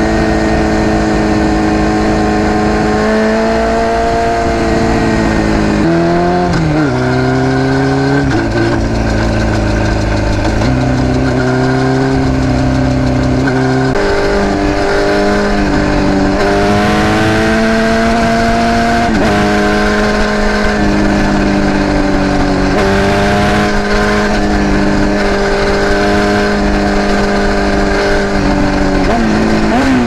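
Yamaha YZF600R's inline-four engine running at speed through a Two Brothers C2 carbon-fibre exhaust, its note holding steady and then dropping and climbing again several times as the rider shifts and rolls the throttle on and off. A constant rush of wind and road noise runs underneath.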